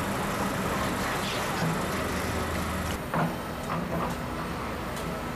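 Excavators' diesel engines running steadily amid general site noise, a low drone under a wash of sound. About three seconds in, the drone shifts and a short knock stands out.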